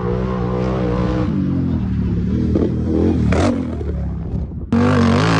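Sharmax 1100 ATV engine running and revving, its pitch rising and falling in the middle; near the end it cuts suddenly to a louder engine sound.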